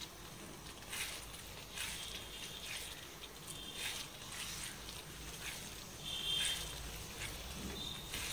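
Spatula stirring thick onion and coconut-milk gravy in a non-stick kadai, a soft wet scrape with each stroke, roughly one a second. A few short high chirps sound over it, the loudest about two-thirds of the way in.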